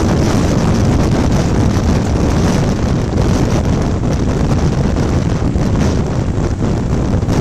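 Loud, steady wind buffeting on the microphone of a camera riding on a moving motorcycle, with road and vehicle noise beneath it.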